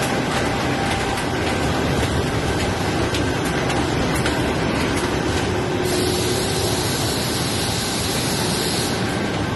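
Printing machinery running: a steady, dense mechanical din with faint ticking, joined by a high hiss from about six to nine seconds in.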